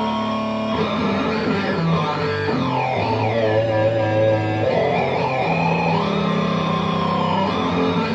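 Electric guitar played through an EarthQuaker Devices Data Corrupter, a PLL harmonizing fuzz-synth pedal. It gives thick, synth-like held notes that change pitch every second or so, with overtones sweeping up and down above them.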